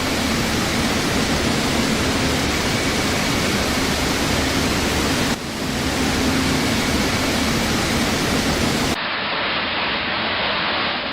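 Steady rushing of floodwater, a dense, even noise with no rhythm. It cuts briefly about five seconds in, and about nine seconds in it changes to a duller version of the same rush.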